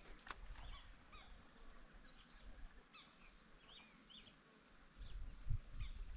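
Faint birds calling in short, separate chirps, repeated throughout. About five seconds in, a louder low rumbling sets in on the microphone, with one thump.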